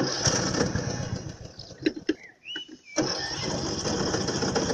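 Ride-on lawn mower engine being cranked by its starter in two bursts of about two seconds each, with a short break between them.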